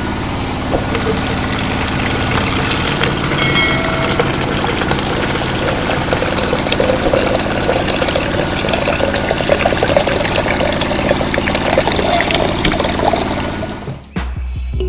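Small electric motors of a miniature DIY concrete batching plant running steadily with a dense crackling rattle, cutting off about a second before the end.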